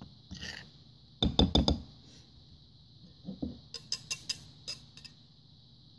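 A spoon knocking against the side of a mixing bowl while stirring dry flour: a quick run of four knocks about a second in, then a string of lighter clicks a few seconds later.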